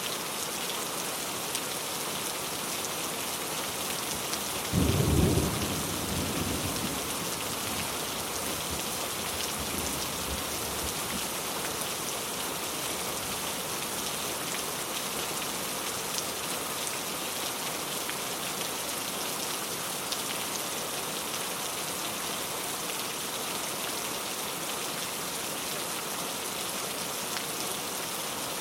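Steady rain falling throughout, with one sudden clap of thunder about five seconds in that rumbles away over the next few seconds.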